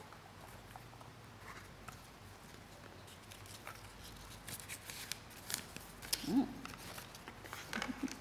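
Paper slips rustling and crinkling close to a microphone as a folded note is drawn from a wicker basket and opened, soft scattered crackles that grow busier in the second half. A short rising tone about six seconds in is the loudest moment.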